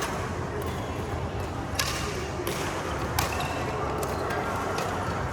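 Badminton rackets striking a shuttlecock in a rally: a few sharp smacks, the loudest about three seconds in, over background hall noise.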